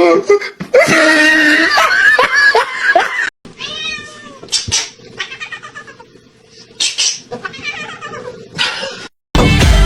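Domestic cats yowling and meowing: loud drawn-out yowls for about the first three seconds, then, after an abrupt cut, a few shorter, quieter meows over a steady hum. Music comes in near the end.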